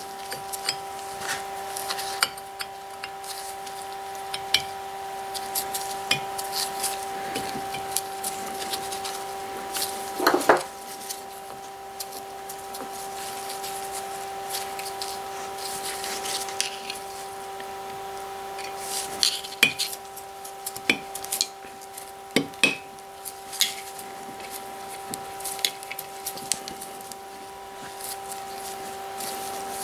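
Steel parts of a TS-210 lathe's three-jaw chuck clinking and clicking as the scroll is worked back into the chuck body by hand and with a small screwdriver, with a louder ringing metal knock about ten seconds in and sharp clicks around twenty seconds in. A steady hum runs underneath.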